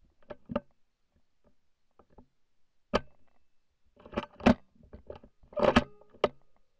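Irregular sharp clicks and knocks of a hunting rifle with a mounted camera being handled and swung, about seven in all. The loudest come about three seconds in and in two clusters near the end, with a faint squeak among the last ones.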